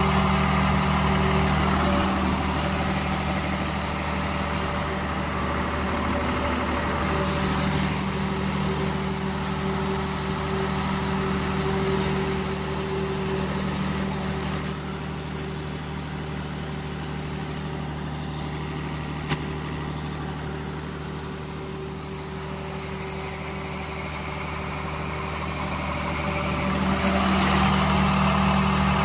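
Cummins diesel generator set running at a steady, unchanging speed, a constant engine drone. It grows somewhat quieter through the middle and louder again near the end, with one sharp click about two-thirds of the way through.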